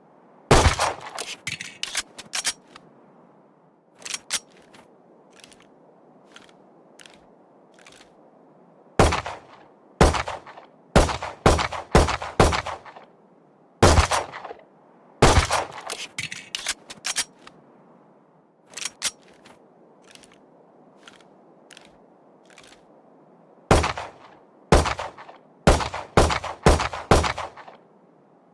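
Handgun gunshot sound effect: sharp shots fired singly and in quick strings of several, with fainter clicks in the pauses between the strings and a steady low hiss underneath.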